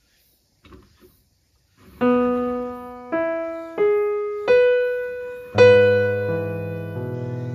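Background piano music starting about two seconds in: a few single notes one after another, then fuller chords with bass from about halfway.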